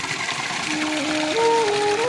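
A steady hiss of water, with a simple flute-like melody entering under a second in and stepping between a few held notes.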